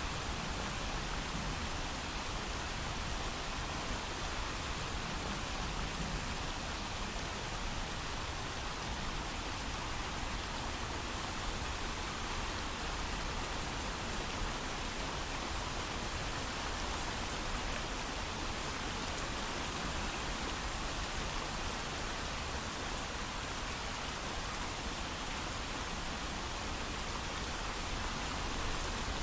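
Steady heavy rain falling, an even hiss with no thunder and no change in intensity.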